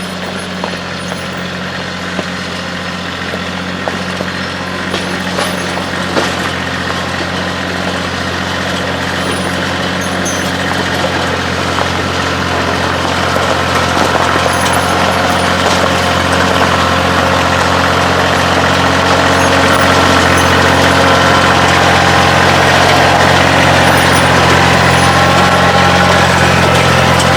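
Kioti CK2610 compact tractor's three-cylinder diesel engine running steadily, growing gradually louder through the second half.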